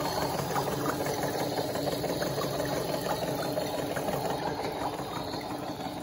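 Battery-powered toy washing machine on its spin cycle: the small motor runs steadily, turning the drum.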